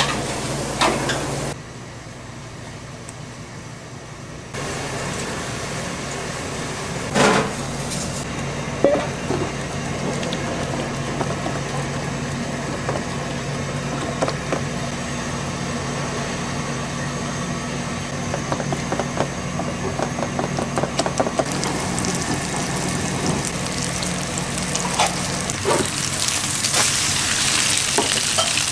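Kitchen cooking sounds: a steady hum under a sizzling or watery hiss, with scattered knocks and clinks of utensils, changing abruptly several times.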